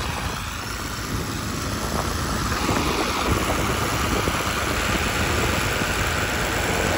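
Tractor diesel engine running steadily, growing louder about two seconds in, as a tractor pulls a rotavator through a flooded, muddy paddy field.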